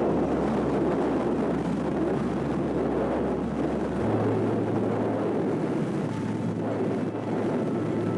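A car driving through flood water over the road: a steady rush of water spraying and sloshing around the tyres and body.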